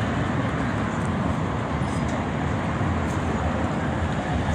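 Steady road traffic on a busy city avenue, a continuous even rumble of passing vehicles.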